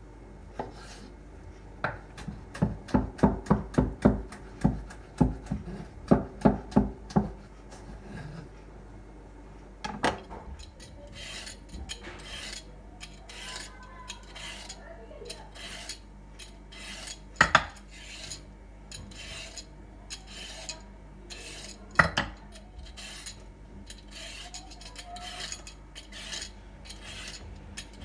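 A knife chopping on a cutting board in a quick run of even strokes, about three a second. Then kitchen utensils scrape and rub against dishes, broken twice by a sharp knock.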